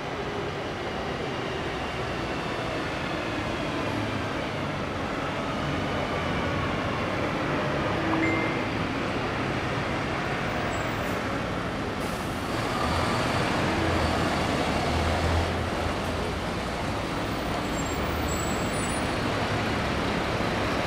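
Diesel engines of heavy trucks (police water cannon trucks and an army truck) running steadily as they drive slowly by. A deeper, louder engine drone sets in about two thirds of the way through as one truck passes close.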